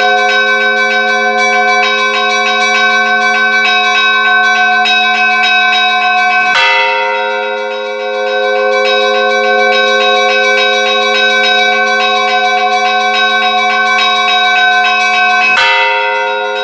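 Church bells ringing in a continuous peal: small bells struck in quick, even succession over the long hum of larger bells. A louder fresh strike comes about six and a half seconds in and again near the end.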